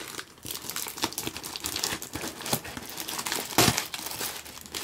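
Packing tape and plastic wrapping being peeled and torn off a cardboard shipping box: irregular crackling and crinkling, with one louder rip about three and a half seconds in.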